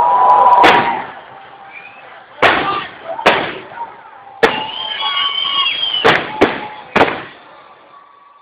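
Aerial fireworks shells bursting: about seven sharp bangs, spaced a second or so apart, with high whistling tones between them.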